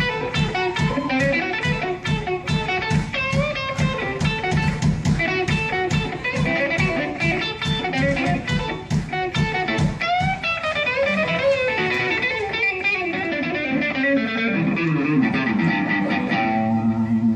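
Electric lead guitar played through an amplifier on a Les Paul-style guitar: quick runs of picked notes at first, then from about ten seconds in slower notes bent up and down, settling on held low notes near the end.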